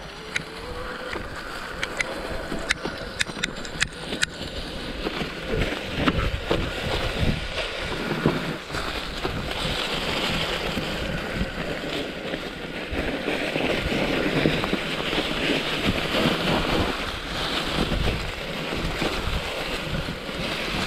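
Mountain bike tyres rolling over a thick layer of dry fallen leaves: a steady crunching rustle with wind on the microphone. Sharp clicks and rattles come through in the first four seconds.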